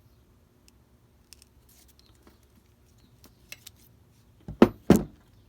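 Steel linesman pliers crimping an insulated crimp connector onto a wire. Light handling ticks come first, then two sharp snaps close together near the end as the crimp jaws are squeezed shut.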